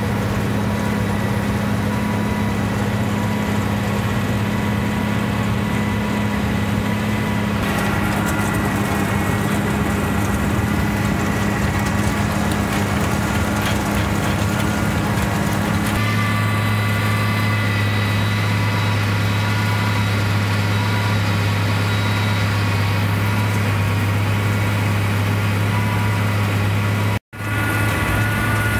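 Steady, loud drone of a tractor engine and PTO-driven machinery as a forage box's beaters and conveyor unload chopped haylage. The drone's pitch shifts about 8 and 16 seconds in, and the sound cuts out for a split second near the end.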